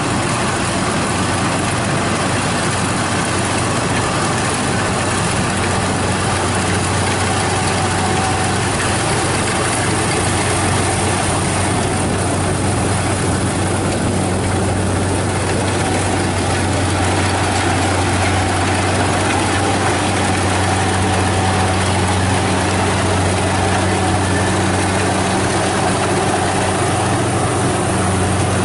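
Kubota DC70 combine harvester running steadily while it cuts rice: its diesel engine makes a constant low hum under the clatter of the cutting and threshing machinery.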